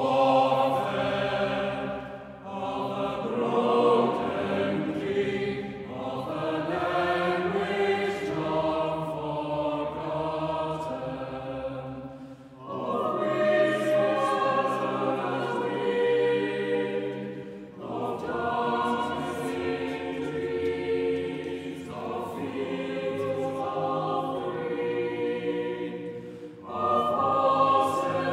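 Mixed-voice chamber choir singing sustained chords in phrases of a few seconds each, with brief breaks between phrases.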